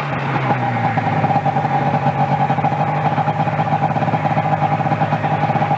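Snowmobile engine idling steadily, with an even pitch and a fast flutter.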